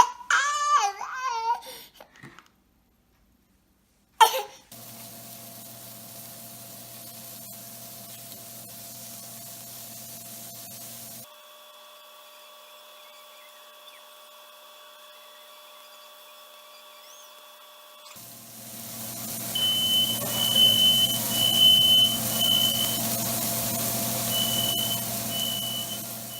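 Smoke alarm beeping in a repeating run of high-pitched beeps, set off by smoke from pork belly grilling, over a steady hiss and a fan's hum. A young child's short cry is heard at the start.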